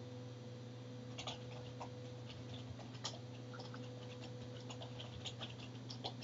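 Computer keyboard keystrokes: scattered light clicks starting about a second in, coming quicker in the second half as a user name and password are typed, over a low steady hum.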